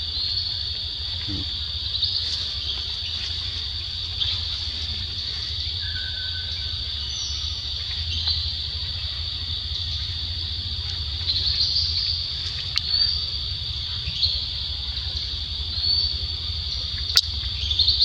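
Forest insects, such as cicadas or crickets, keep up a steady high-pitched drone over a low rumble, with a few short chirps breaking in.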